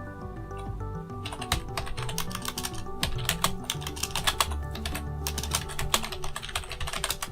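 Rapid, irregular clicking and tapping at a computer, over background music with a melody.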